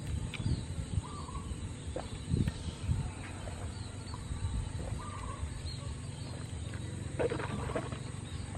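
A man drinking water from a plastic bottle: a few low gulps in the first three seconds, then a short noisy sound near the end as the bottle comes down.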